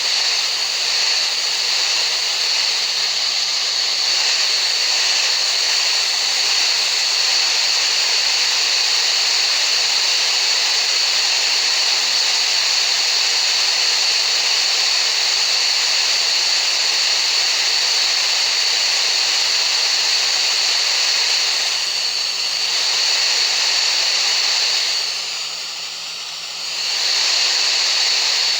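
Steady rushing hiss played as a tinnitus-relief masking sound, with a steady high tone running through it. The level dips for about two seconds near the end, then returns.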